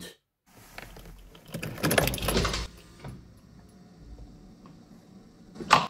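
The idle control valve of a Mercedes KE-Jetronic injection system buzzes for about a second as the ignition is switched on, then settles to a faint steady hum, with one sharp click near the end. The sound is the sign that the idle control valve is working, and so that its overvoltage protection relay and ECU are working too.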